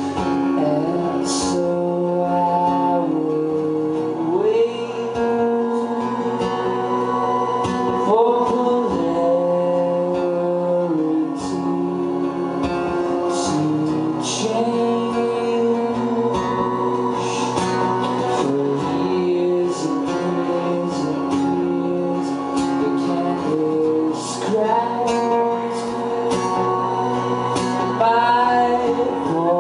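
Live acoustic guitar run through effects pedals, with a man singing long held notes over layered sustained tones. Several times the sung line slides up in pitch to a new held note.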